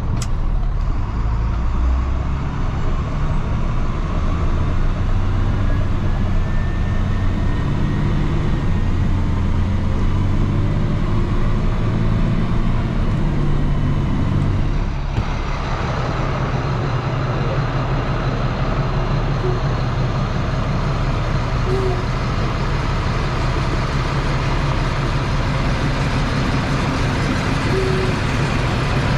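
Loaded farm truck's engine running steadily, its engine note shifting to a new pitch about halfway through.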